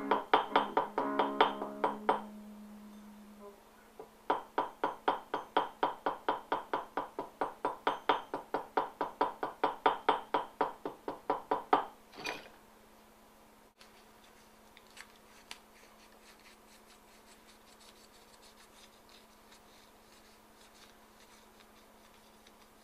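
Acoustic guitar music of plucked notes in a steady rhythm, about four a second, pausing briefly after two seconds and stopping about halfway through. Afterwards only faint clicks are left.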